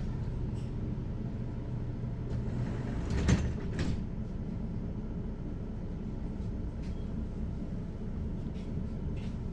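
Mercedes-Benz Citaro articulated city bus standing at a stop with its diesel engine idling steadily. A short, loud burst of noise comes about three seconds in.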